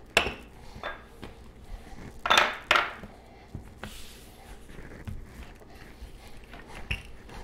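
Wooden rolling pin and hands working pie dough on a tiled countertop: a sharp knock, a few light taps, and two louder scraping swishes a little over two seconds in, then quieter rubbing and clicks as the dough is shaped and rolled.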